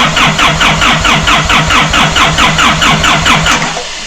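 Diesel engine of a Doosan 7/71 portable air compressor being cranked over on its starter in an even rhythm of about five beats a second, turning it over to get oil around after long standing. The cranking stops abruptly near the end.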